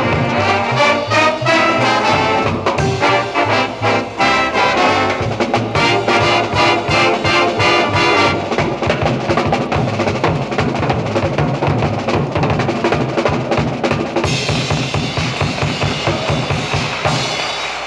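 High school band music from a 1965 LP recording: brass playing over drums. About eight seconds in, the passage becomes carried mostly by steady low drum beats.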